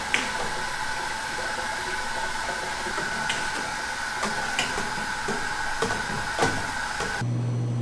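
Kitchen machinery running with a steady hissing whir, with a few light knocks and clinks, then near the end a change to a steady low motor hum.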